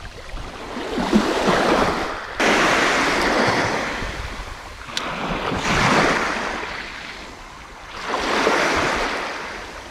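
Small waves breaking and washing up a shallow beach: several surges of surf a few seconds apart, each swelling and fading.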